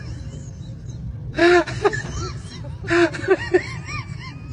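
Short whimpering, baby-like cries in two loud bursts and a run of small rising-and-falling wails, over the steady low rumble of a moving train carriage.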